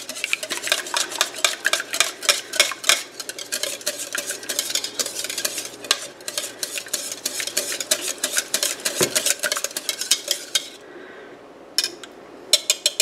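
Wire whisk beating eggs in a mixing bowl: rapid clicking strokes, several a second, of the wires against the bowl. The whisking stops about eleven seconds in, with a few more strokes near the end.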